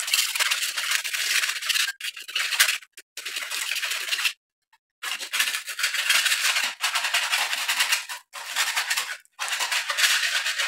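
Hand paint scraper scraping loose, damp-bubbled paint off a wall in runs of quick back-and-forth strokes, with short breaks between runs, the longest about four seconds in.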